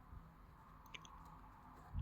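Near silence: faint steady room hiss, with a couple of small, brief clicks about a second in.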